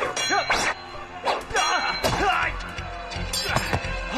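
Kung fu film fight soundtrack: background music under a series of sharp weapon whacks and clangs, with short fighters' shouts in the first second and again around two seconds in.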